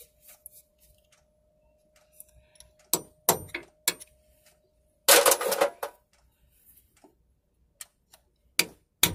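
Steel tool clicking and scraping against the steel locking washer on the gearbox output flange bolt as its tab is pried over to lock the bolt: a few sharp metal clicks, a longer scrape about five seconds in, then more clicks near the end.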